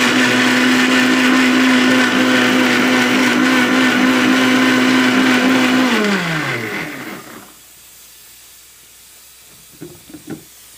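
Electric blender motor running steadily while blending tomatoes, then switched off about six seconds in, its pitch falling as it winds down to a stop. A few light knocks follow near the end as the lid is handled.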